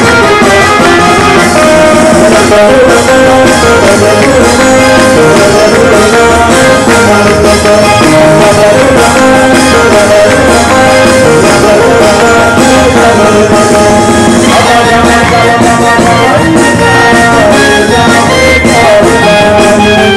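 Loud Hasidic wedding dance music with a steady beat and a busy melody line, the kind played for the mitzvah tantz.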